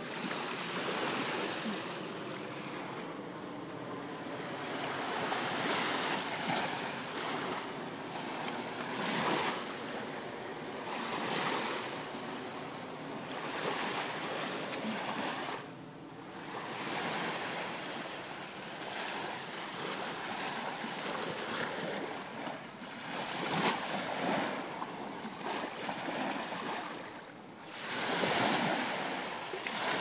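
Small ocean waves breaking and washing up onto a sandy beach, the surf swelling and fading every few seconds.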